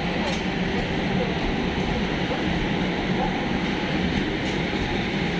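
Steady rumble and hiss of a train at a station platform, with no distinct knocks or rhythm.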